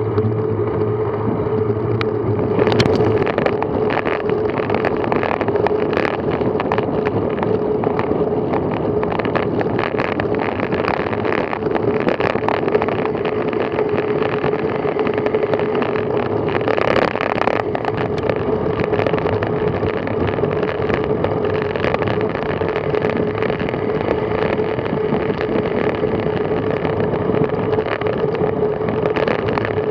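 Steady wind and road noise from a road bicycle moving at about 20 mph, picked up by a camera on the bike. It carries a constant hum and a dense crackle throughout.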